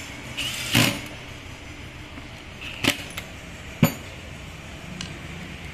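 Handling noise from cordless power tools on a wooden workbench: four sharp knocks and clicks, the loudest about a second in, the last one faint, over a steady low hiss.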